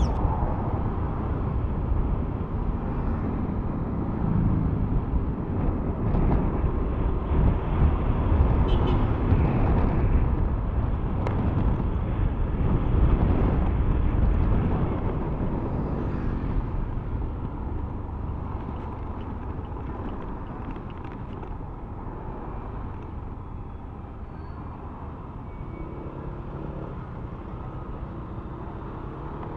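Wind and road noise from a Yamaha Aerox 155 scooter under way, buffeting the handlebar-mounted camera's microphone as a steady low rumble, with the scooter's engine running underneath. It grows gradually quieter from about halfway through.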